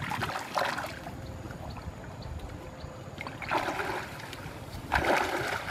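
Shallow pond water splashing and sloshing as a person wades through it, in three short bursts: near the start, a little past halfway, and at the end.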